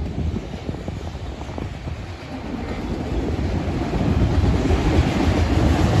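Freight train of autorack cars rolling past, a steady rumble of steel wheels on rail that grows louder over the second half.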